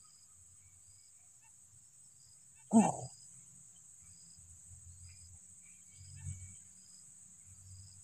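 Steady high-pitched drone of insects with a short chirp repeating about once a second. About three seconds in there is one brief, loud, low-pitched sound.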